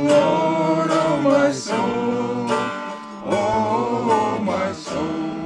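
A small group singing a worship song, accompanied by a strummed small acoustic guitar, with a short break in the singing about three seconds in.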